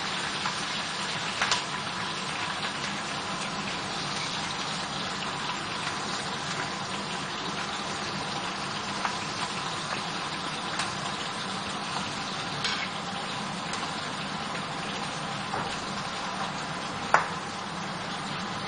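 Black cumin and chillies frying in hot mustard oil in a frying pan: a steady sizzling hiss with occasional sharp pops, the loudest about 17 seconds in.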